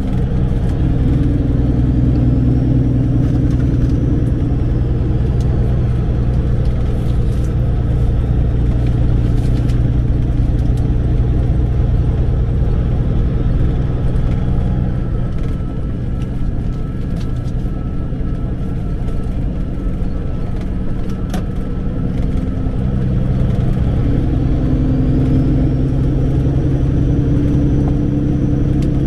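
Semi truck's diesel engine running under way, heard from inside the cab. Its note eases off for a while past the middle and picks up again about 23 seconds in.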